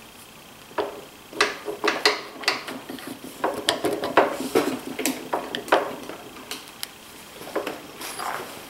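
Irregular metal clacks and knocks from a DeWalt DW735 planer's gearbox housing as it is tugged and wiggled by hand, thickest in the first six seconds. The gearbox does not budge: it is held in place by the two-speed switch left in the finishing setting.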